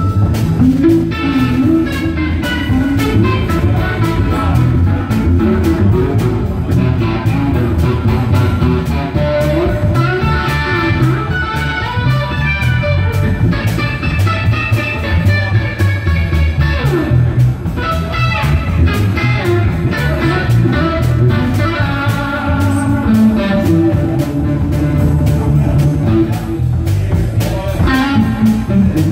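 Live band of electric guitar, electric bass and drum kit playing, with the electric guitar carrying the lead line and bending notes over a steady bass and drum groove.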